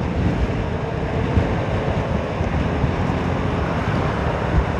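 Steady wind rush over the microphone while riding a Honda Forza 300 scooter, with the scooter's engine and road noise running underneath at an even, low-rev pace.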